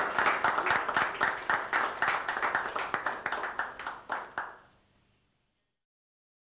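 Hand clapping from a small audience, several sharp claps a second, dying away about four and a half seconds in.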